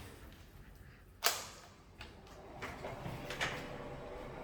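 A door being opened indoors: a sharp latch click about a second in, followed by a few lighter clicks and knocks.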